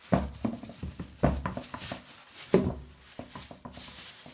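Thin plastic trash bag rustling and crinkling as it is pushed into the tabs of a plastic bin rim, with three sudden dull bumps about a second apart.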